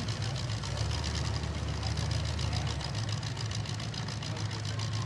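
Demolition derby cars' engines idling with a steady low rumble; the deepest part of the rumble fades about three seconds in.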